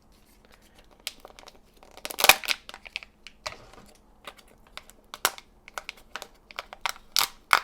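Kinder Joy egg packaging being opened by hand: foil wrapper and plastic crinkling and tearing, with irregular sharp plastic clicks, busiest about two seconds in and again near the end.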